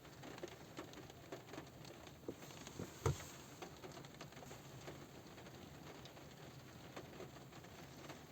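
Light rain pattering on a car roof: many scattered, irregular drop ticks, with one louder drop about three seconds in.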